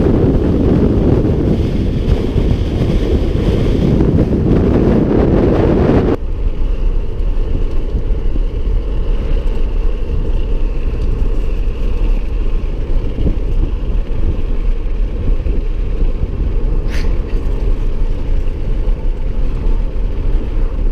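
Steady low rumble of a moving vehicle with wind on the microphone; it drops abruptly and changes character about six seconds in.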